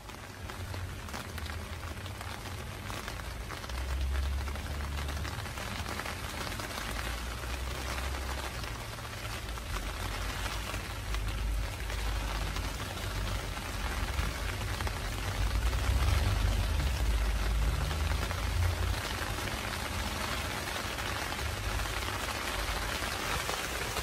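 Steady rain pattering on a small container garden, an even hiss with an uneven low rumble underneath.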